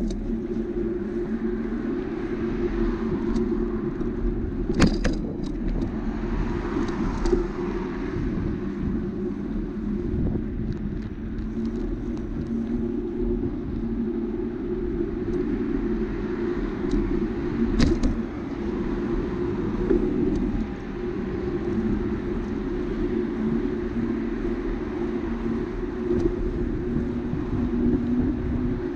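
Steady wind and rolling noise from a bicycle riding along a bike lane, with car traffic passing on the road alongside. There are two sharp knocks, one about five seconds in and another past the middle.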